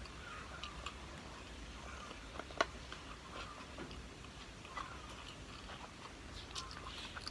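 Close-miked eating sounds: soft chewing and small wet mouth clicks, with one sharper click about two and a half seconds in.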